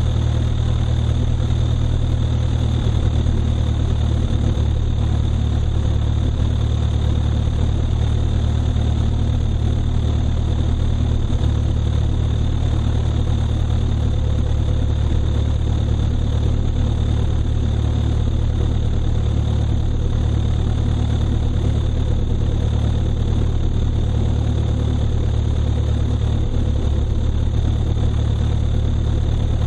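Light airplane's engine running steadily at low power while taxiing: an even, unchanging low hum with a faint steady high whine above it.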